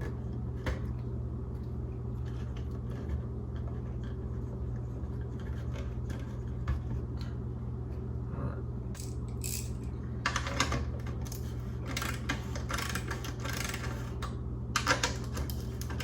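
Small hard clicks and rattles of parts being handled on a Ford truck instrument cluster as the gauges are worked loose, sparse at first and coming thick and fast from about ten seconds in, over a steady low hum.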